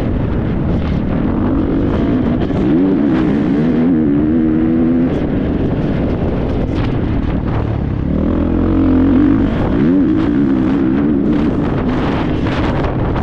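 Motocross dirt bike engine under way, its pitch climbing and dropping back as the throttle is opened and eased through the gears, twice, with wind rushing over the helmet-camera microphone.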